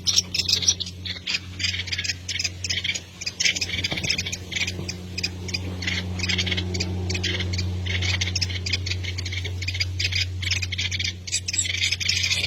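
Small birds calling in quick, repeated sharp chirps, with a steady low electrical-sounding hum underneath.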